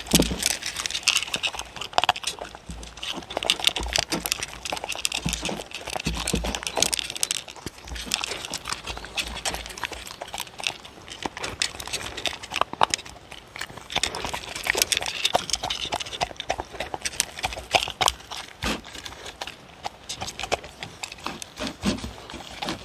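Dogs eating horse-meat kibble from wooden bowls right at a microphone: quick irregular crunching, lapping and licking clicks, with now and then a muffled knock of a muzzle against the bowl.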